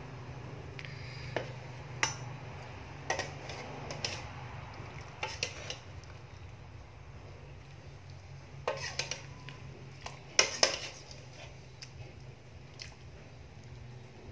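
Metal ladle knocking and clinking against an aluminium cooking pot and a plate as soup is ladled out. The knocks come singly or in small clusters, the loudest pair about ten and a half seconds in, over a steady low hum.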